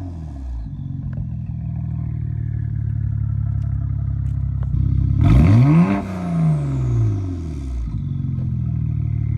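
BMW N54 twin-turbo inline-six, fitted with Vargas OEM+ turbos with 6x6 billet wheels, idling, then given one quick throttle blip about five seconds in; the revs climb and fall away, followed by a high turbo whistle sliding down as the turbos spin down.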